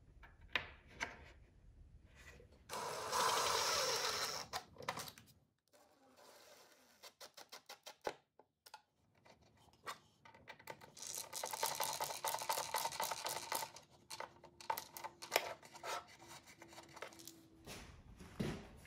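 Wooden tabletop clips being fitted into the table apron's groove and screwed down. There are two runs of a small power driver, about three seconds in and again around eleven seconds, with clicks and knocks of wood being handled between them.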